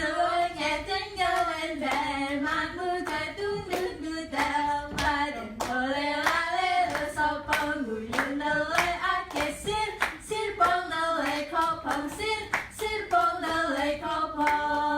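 Voices singing a tune together, with many sharp hand claps through the song.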